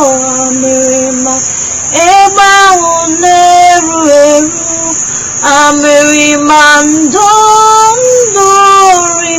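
A high solo voice, a woman or girl, singing a slow song in long held notes that step up and down in pitch, phrase after phrase with short breaths between.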